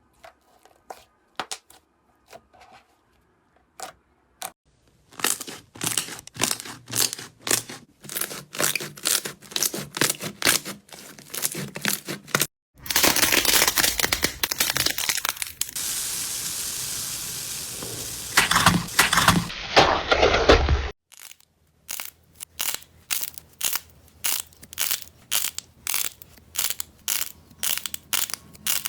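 Slime being handled and squeezed, making a quick run of sharp sticky pops and clicks. About halfway through it turns for several seconds into a dense, continuous crackle, then the separate pops return.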